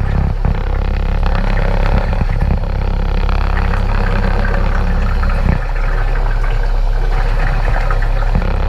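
Steady motor and propeller rumble of a mini sub heard underwater, with the crackle of air bubbles streaming from a diving helmet. The low rumble eases a little about five and a half seconds in.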